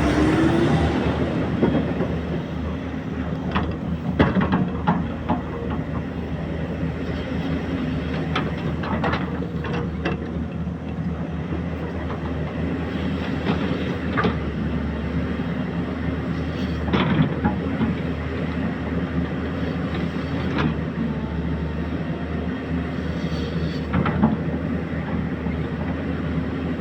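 Excavator's diesel engine running steadily under work, with scattered metallic clanks and knocks from the machine.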